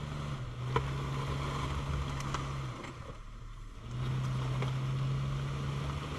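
The old Jeep Cherokee fitted with a snow plow gives a steady mechanical hum at an unchanging pitch. The hum stops for about a second midway, then starts again, with a few light clicks.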